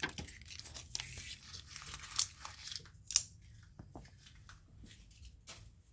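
Freshly stropped knife blade slicing through paper in a series of quick cuts, with paper rustling and crinkling between them; the sharpest slices come about two and three seconds in.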